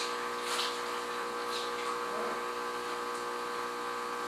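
Steady electric hum made of several held tones, like a small motor or pump running. A few brief soft swishes come about half a second and a second and a half in.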